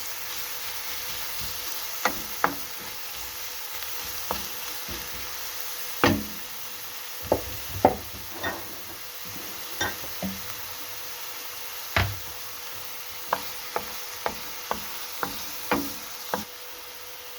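Chopped onion and grated garlic sautéing in olive oil in a pan, a steady sizzle, with sharp irregular knocks of a utensil stirring against the pan, roughly once a second.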